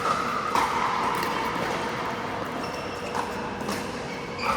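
Pickleball paddles striking a plastic ball: several sharp pops at irregular intervals over the steady background noise of an indoor hall.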